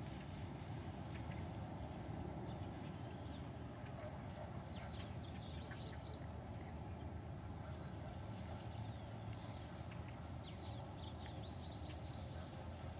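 Outdoor ambience: a steady low rumble, with small songbirds chirping in two short bursts, about five seconds in and again near the end.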